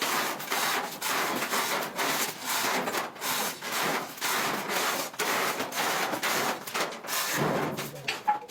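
A hand tool worked back and forth against a hard surface in rhythmic rasping strokes, about two a second.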